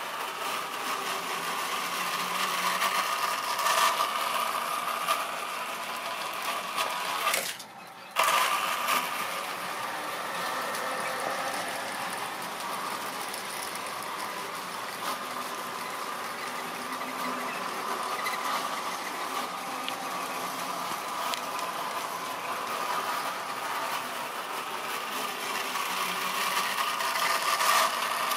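A Tri-ang model railway train running on its track: the locomotive's small electric motor whirs steadily while the wagons' wheels rattle over the rails. The sound drops away briefly for under a second after about seven and a half seconds.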